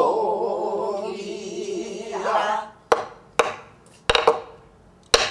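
A woman's pansori voice holds the last syllable of a sung line with a wide, wavering vibrato for about two and a half seconds. Then come about five sharp, separate strokes on a buk barrel drum, keeping the rhythm.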